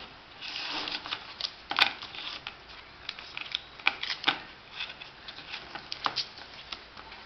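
Small phone parts, an iPhone 4 replacement front screen assembly and back cover, being handled by hand on a sheet of paper: irregular light clicks and taps as they are set down, flipped and picked up, with a brief paper rustle near the start and one sharper click just under two seconds in.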